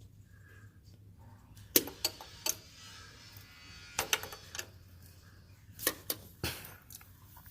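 Hand tools clinking and knocking against metal as a wrench is worked onto bolts: about eight sharp, separate clinks at irregular intervals, the loudest about two seconds in.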